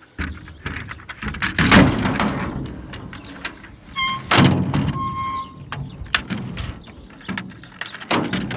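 Knocking, clattering and rasping scrapes from working loose the old plastic emergency roof hatch and its tar sealant on a school bus roof. The loudest scrapes come about two seconds and four and a half seconds in.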